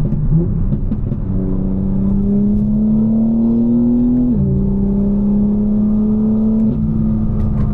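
BMW M4's tuned S58 twin-turbo inline-six pulling under acceleration, its note rising steadily, then dropping sharply about four seconds in as it shifts up. It settles into a steadier note, with another small dip in pitch near the end.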